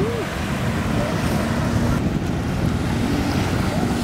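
Wind rushing over the microphone and lake water splashing as the camera moves over the waves, with a watercraft engine droning faintly underneath.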